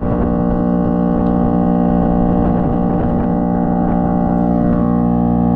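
Farm machinery running at a steady speed, an even drone made of several steady tones.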